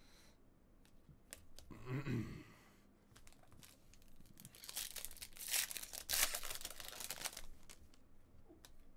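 Foil baseball-card pack wrapper being torn open and crinkled by hand: a crackly rustle of about three seconds in the middle, after a few small clicks of cards being handled.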